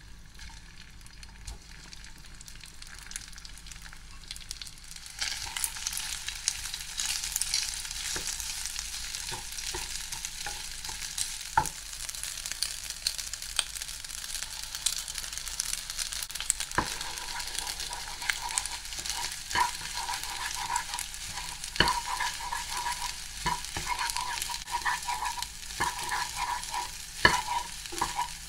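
Egg-coated rice sizzling in hot oil in a nonstick frying pan, the sizzle growing louder about five seconds in. In the second half a wooden spatula taps and scrapes the pan as the rice is stirred, with many short clicks over the hiss.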